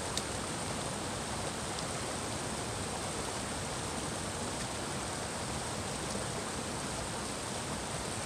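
Shallow mountain creek rushing steadily over rocks, a continuous even hiss that cuts off suddenly at the end.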